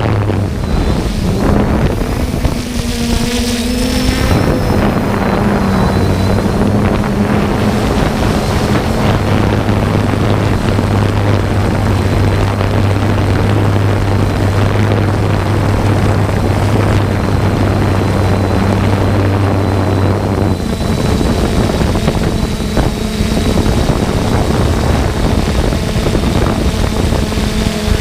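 Multirotor drone's propellers humming steadily, the pitch shifting a few times as the drone manoeuvres, with wind noise on the microphone.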